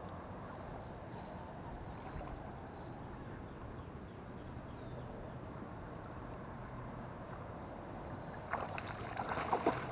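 Small ripples lapping at the pond's edge right at the microphone, a steady low wash of water. A few sharper splashes and clicks come in near the end.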